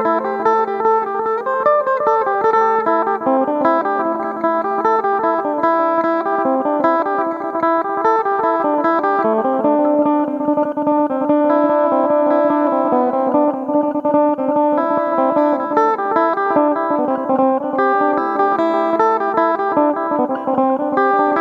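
Electric phin, the Isan Thai lute, played through an effect: a quick plucked melody over a steady drone note. The drone drops out about nine seconds in and comes back near the end.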